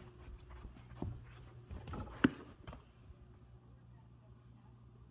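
Footsteps and handling noises as things are moved around a cardboard box, with one sharp knock a little after two seconds in, over a low steady hum.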